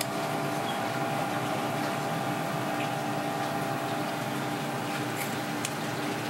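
Steady machine hum and hiss of a commercial kitchen, with a couple of faint clicks about five seconds in as kitchen shears snip through porcupinefish flesh and bone.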